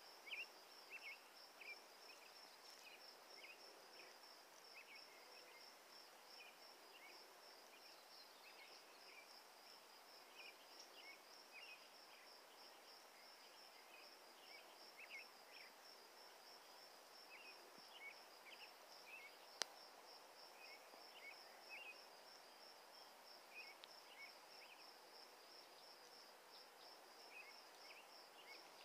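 Faint open-air ambience: a steady high, rapidly pulsing trill with short high chirps scattered through it, and one sharp click about two-thirds of the way in.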